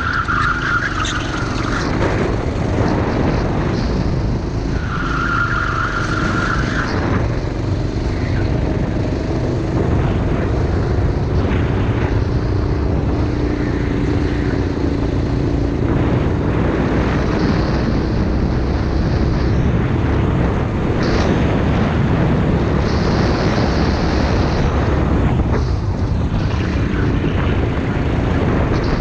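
Go-kart engine running hard at racing speed, its note rising and falling with throttle through the corners. Brief high squeals twice in the first seven seconds, tyres scrubbing through a bend.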